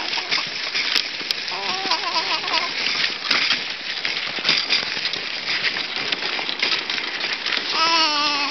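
Baby boy making wavering, wobbling vocal noises in a pram, once about two seconds in and again near the end, over the steady crunching and rattling of the pram rolling over hard, bumpy snow.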